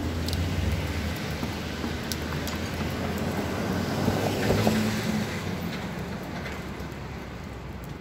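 A car driving past on a wet street, its engine and tyre hiss swelling to the loudest point about four to five seconds in, over steady city traffic noise.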